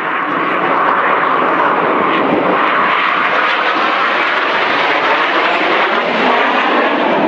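Engine noise of a four-aircraft aerobatic formation flying overhead at an air show, a steady rushing drone that swells in as the sound begins and then holds even.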